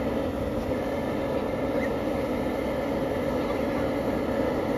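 High-pressure propane jet burner under a large aluminium boil pot, burning with a steady, even rushing noise. The water is heating and not yet boiling.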